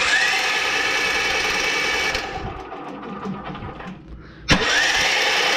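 Electric starter cranking a 439 cc OHV generator engine in two bursts, each opening with a click and a short rising whine, the engine spinning over evenly without firing. This is the sign of no compression, which the owner takes to mean something inside is broken.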